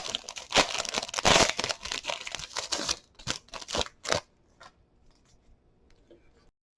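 A trading-card pack's wrapper being torn open and crinkled for about four seconds, then the sound stops.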